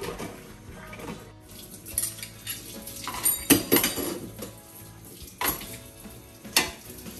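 Dishes and cutlery clattering in a stainless-steel sink as they are washed by hand, with a series of sharp clinks, the loudest about three and a half seconds in, while the tap runs.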